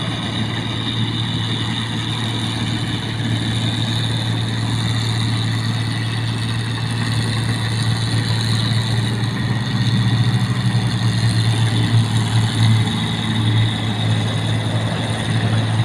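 Engine of a rice-field machine (mesin padi) running steadily with a strong low hum, getting slightly louder and more uneven about two-thirds of the way through.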